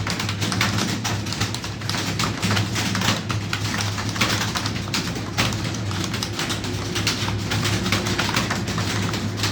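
Rapid, irregular keyboard key clicks from typing, over a steady low hum.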